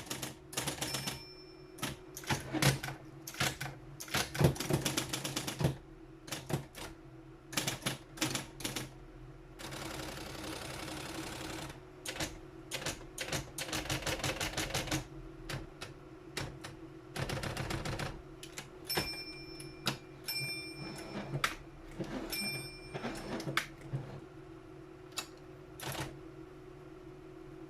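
Triumph-Adler 131D electric typewriter being typed on: quick irregular key strikes over the steady hum of its running motor. There are a few longer runs of continuous mechanical clatter and, in the second half, a few short high-pitched rings.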